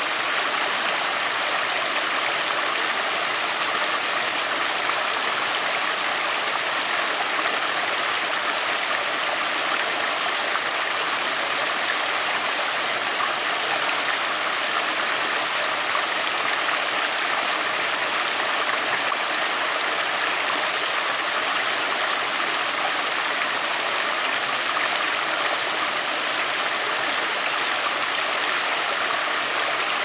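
Rocky rainforest stream spilling over boulders in small cascades: a steady rush of water.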